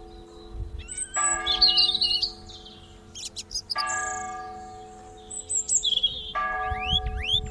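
A large bell struck three times, about two and a half seconds apart, each stroke ringing on and slowly fading over a low lingering hum. Small birds chirp and twitter between the strokes, with a run of rising whistles near the end.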